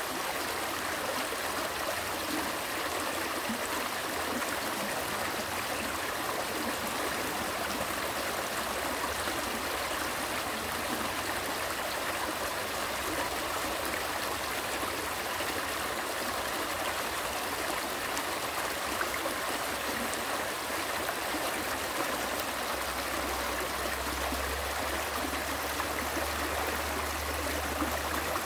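Small mountain stream flowing, a steady, unbroken rush of water.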